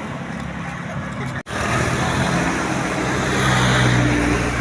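Road traffic: a motor vehicle's engine running with tyre and road noise, cut off abruptly about a second and a half in, then returning louder and swelling near the end as a vehicle passes close.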